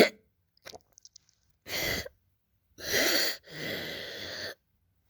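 A young child with acute laryngitis (croup) coughing and breathing harshly: a short sharp cough at the start, then three noisy breaths, the last drawn out for about a second. The harsh breathing is the stridor of a swollen, narrowed larynx.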